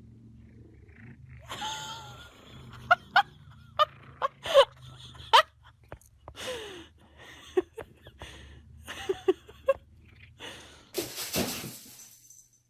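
A pet making a string of short, squeaky pitched calls, some sliding down in pitch, with a breathy rush near the end.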